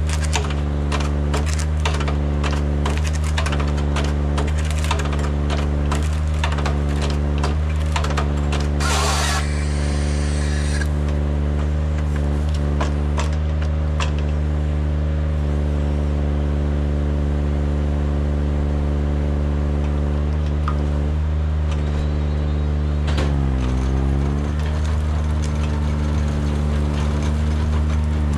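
Kranman Bison 11 000's engine running steadily while its Jobo ST35 harvester head delimbs a pine stem: rapid cracking and clattering of branches for the first several seconds, then a saw cutting through the stem for about two seconds. Near the end the engine pitch dips and recovers briefly under hydraulic load.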